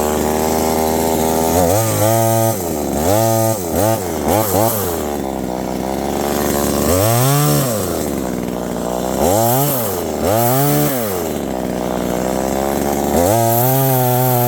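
Small 25cc two-stroke chainsaw idling, then revved up and back down about seven times in short bursts. Near the end it holds at a steady higher speed.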